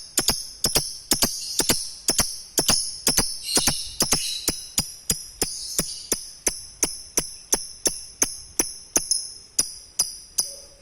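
Lovebird ngekek, a long high-pitched chattering run, laid over a steady sharp ticking beat of nearly three ticks a second.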